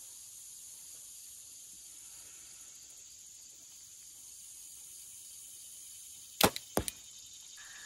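A 62-pound compound bow shot: a sharp snap as the string is released about six and a half seconds in, then about a third of a second later the smack of a heavy 522-grain carbon arrow hitting a bag target. Insects drone steadily at a high pitch throughout.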